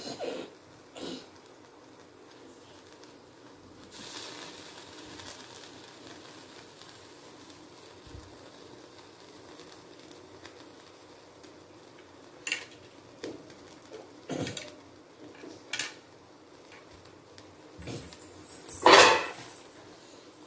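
Bamboo skewers of paneer tikka being handled and turned on a wire grill stand over a gas burner: scattered light knocks and metallic clinks, a couple at the start and a cluster in the second half, the loudest a longer clatter near the end, over a faint steady hiss.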